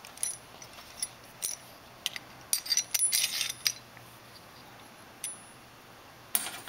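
Small metal parts of a Reznor waste oil burner nozzle line assembly clicking and clinking as they are handled and fitted together by hand. There are a few light clicks, a quick cluster of clicks about halfway through, and one sharper click near the end.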